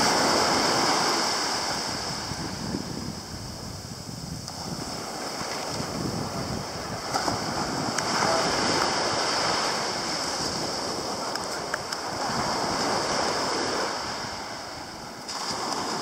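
Small surf breaking and washing up a sandy shore, swelling and fading in slow waves every few seconds.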